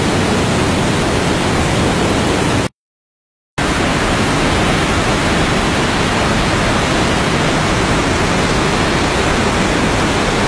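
Steady, loud rush of floodwater released from a dam's spillway shutters, pouring down a gorge. The sound cuts out completely for under a second about three seconds in, then returns unchanged.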